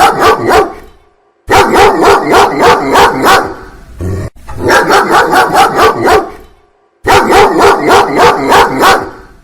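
A dog barking rapidly, several barks a second, in four runs of about two seconds each with short pauses between them.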